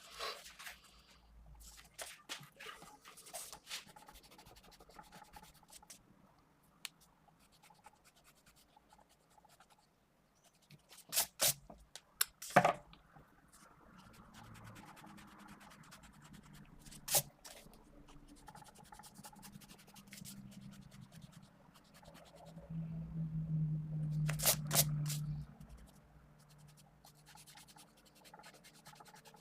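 Mechanical pencil lead scratching on paper in short sketching strokes. A few sharp clicks break in, loudest about halfway through, with a brief low hum for a couple of seconds near the end.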